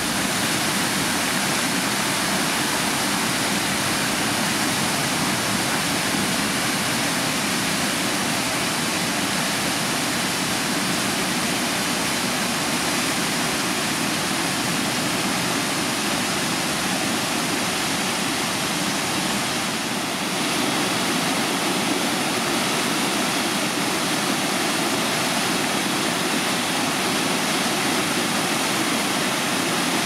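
Steady rush of water from a rocky mountain stream cascading over boulders and a small waterfall plunging into a pool, changing slightly about two-thirds of the way through.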